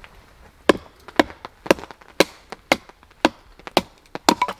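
A wooden baton striking the spine of a knife driven into a short log, splitting it into kindling: sharp knocks about two a second, starting just under a second in.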